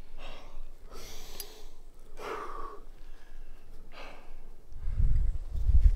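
A rock climber breathing hard under strain: four sharp breaths about a second apart, the third the loudest. A low rumble comes in near the end.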